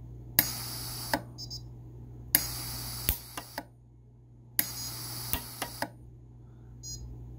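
Micro-TIG pulse-arc welder firing three times on 14k gold jump rings: each weld is a sharp snap followed by about a second of hiss, with a click or two near its end. The welds are made with an electrode that is deliberately neither sharp nor clean, which leaves them a little messy.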